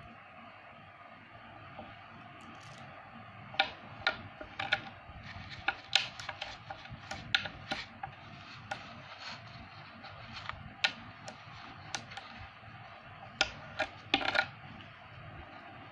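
Neodymium magnet balls clicking sharply as they snap together while being folded and pressed into a multi-row strip: scattered, irregular clicks starting a few seconds in, with a quick run of clicks near the end.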